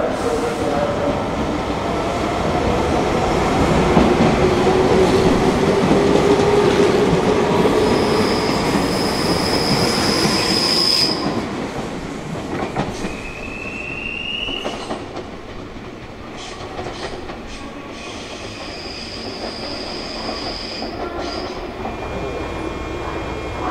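Meitetsu electric commuter trains (a 3100 series among them) running through a station: a steady rumble of wheels on rail with clicks over the rail joints. High-pitched wheel squeal rings out for a few seconds about a third of the way in, rises briefly near the middle, and comes back near the end.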